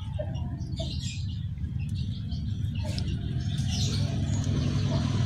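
A low engine hum that grows steadily louder, with faint bird chirps above it.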